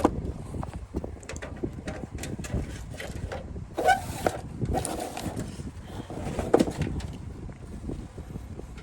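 Hands handling cables and parts inside a PC case: scattered clicks and knocks, loudest about four and six and a half seconds in, over a steady low rumble.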